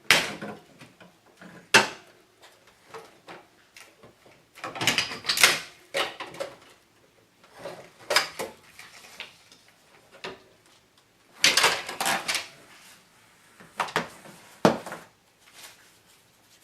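Irregular knocks, bangs and clattering of hand demolition and handling work, with clusters of rattling about five seconds in and again around twelve seconds.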